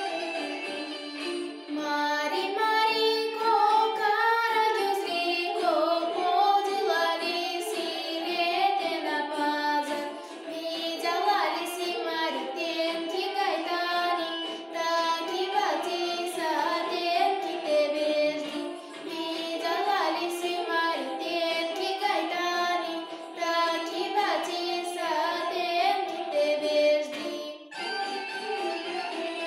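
A girl singing a song solo over instrumental accompaniment. Her voice comes in about a second and a half in and stops a little before the end, leaving the accompaniment playing on its own.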